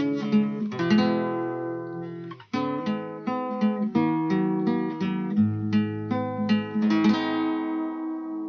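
Acoustic guitar accompaniment playing the closing bars: picked chords with ringing notes, a brief break about two and a half seconds in, and a last chord left ringing near the end.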